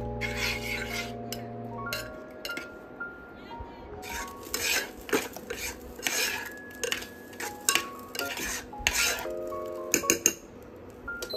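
Metal spoon stirring and scraping thickening oat porridge in a saucepan, in repeated scraping strokes, with a couple of sharp clinks of spoon on pan near the end. Background music with sustained notes plays throughout.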